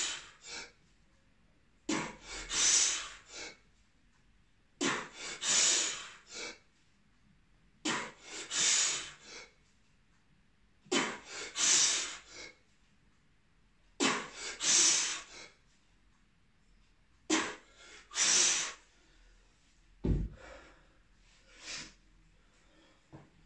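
A man breathing hard through a set of one-arm kettlebell presses: a quick breath in and a forceful breath out with each rep, about every three seconds, six times. Near the end comes a single dull thump, then softer, uneven breaths.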